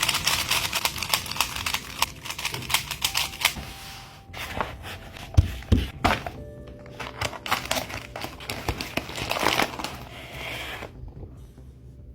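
Crinkling plastic and rattling packaging as a Rubik's-style speedcube box is unboxed, with two thumps about five and a half seconds in, over background music.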